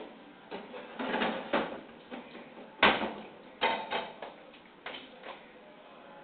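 Kitchen clatter: a string of sharp knocks and clunks, as of pots, lids or cupboard doors being handled, the loudest about three seconds in.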